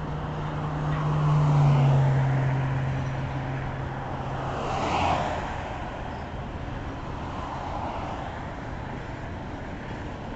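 Union Pacific double-stack intermodal train's well cars rolling past over a bridge, a steady rumble of wheels on rail. A louder passing swell with a low hum that drops slightly in pitch peaks about two seconds in, and a shorter swell comes about five seconds in.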